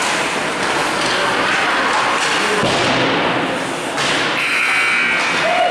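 Hockey practice on indoor ice: skate blades scraping, with sticks and pucks knocking in a steady clatter that echoes around the rink hall.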